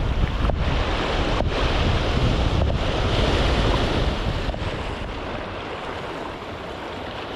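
Small sea waves washing over and around shoreline rocks, with wind buffeting the microphone as a low rumble that eases off over the last couple of seconds.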